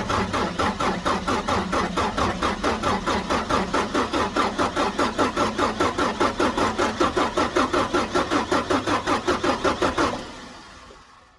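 A 5.9 Cummins diesel being turned over by its starter, with an even chugging about five beats a second, fading away about ten seconds in.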